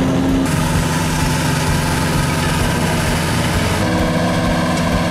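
Grillo FD 2200TS front-deck ride-on mower running steadily, its engine a continuous low drone under a hiss. The hiss grows louder about half a second in and drops back about a second before the end.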